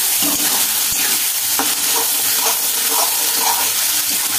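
Onion, garlic and spice masala sizzling in hot mustard oil in a kadhai while a spatula stirs it, with a few short scrapes of the spatula against the pan. The masala is being fried down (bhuna) until the oil separates.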